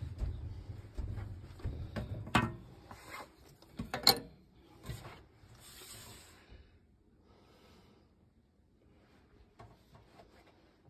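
Rubbing and knocking from someone moving about and handling things inside a small wooden camper, with a few sharp clicks, the loudest about four seconds in, then nearly quiet with faint ticks.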